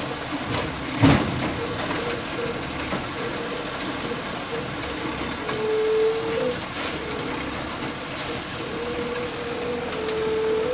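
Automated side-loader garbage truck running at the curb, its hydraulics whining on and off while the arm works, with a single sharp bang about a second in. The engine swells near the end as the truck pulls away.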